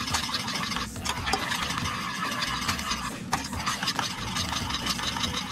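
A metal spoon stirring sauce in a stainless steel saucepan, with a few sharp scrapes and clicks against the pan, over a steady low rumble.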